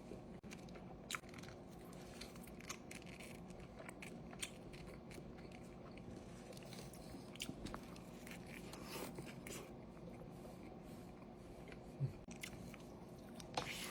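Close-miked chewing and biting of a Cantina Chicken Chalupa: scattered soft crunches and small mouth clicks, faint, over a steady low hum.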